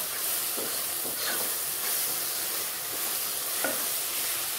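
Onion, tomato and ground-spice masala sizzling steadily in coconut oil in a non-stick pot as a wooden spoon stirs it, with a few light scrapes of the spoon against the pan.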